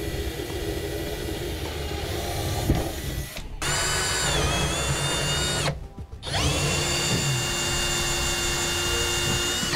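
A cordless drill boring through a countertop, first with a pilot bit and then with a hole saw. The motor whines steadily and breaks off briefly twice.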